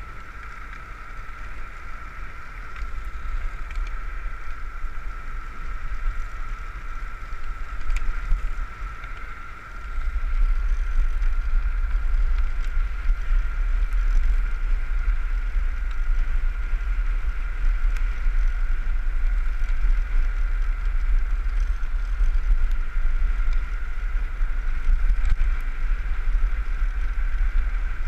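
Land yacht rolling fast over beach sand, with wind buffeting the action camera's microphone as a deep rumble that gets louder about ten seconds in, over a steady high whine.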